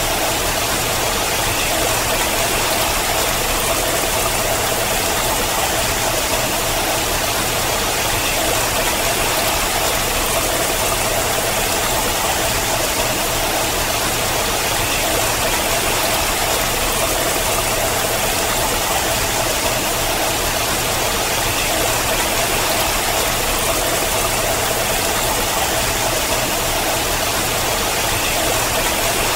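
Water falling and splashing down a rock wall, a steady unbroken rush.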